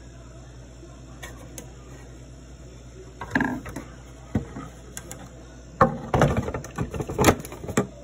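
A run of knocks and clatters from about three seconds in, thickest near the end, as the fridge's panels and parts are handled, over a steady low hum.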